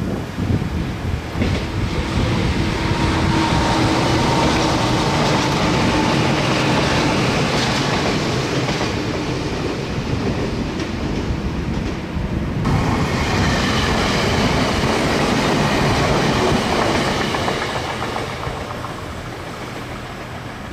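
A Meitetsu (Nagoya Railroad) electric train running on the track, with a steady tone in the first half and a high-pitched whine after an abrupt change about two-thirds through, then fading near the end.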